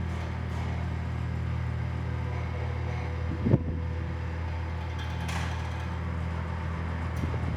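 Cessna Cardinal's piston engine running at a steady drone, with one sharp knock about three and a half seconds in.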